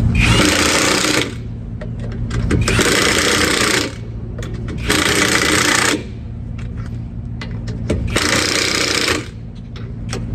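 Impact wrench hammering wheel lug nuts down in four bursts of about a second each, with short pauses between as it moves from nut to nut.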